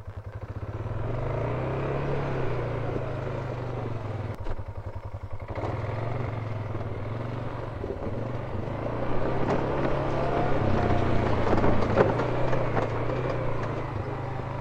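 Off-road vehicle engine running at low speed on a trail, dropping back to a pulsing idle for about a second near the five-second mark, then pulling a little harder, with knocks and rattles over rough ground toward the end.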